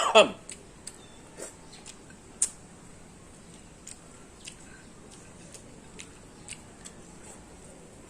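Close-up eating sounds: scattered soft clicks and wet smacks of a person chewing food with the mouth near the microphone, after the tail of a short vocal sound at the very start.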